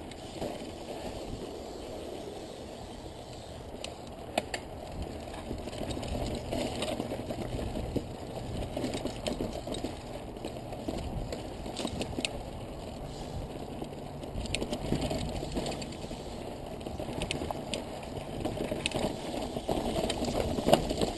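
Mountain bike rolling slowly over a rocky dirt singletrack: a steady rumble of tyres and frame rattle, with scattered sharp clicks and knocks from the bike over rocks.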